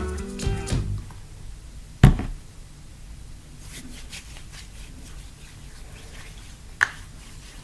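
Background music ending about a second in, then a single loud thump about two seconds in, followed by faint rubbing of lotion between hands and a sharp click near the end.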